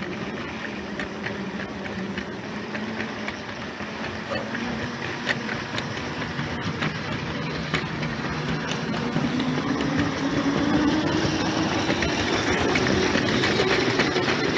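Subway train running, with clicks from the wheels on the rails and a motor whine that rises in pitch as the train picks up speed over the second half.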